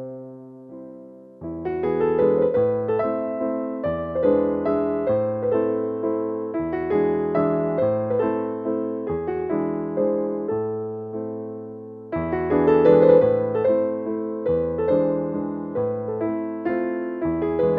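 Background piano music: a gentle piece of sustained notes and chords, fading down near the start and building again about two-thirds of the way through.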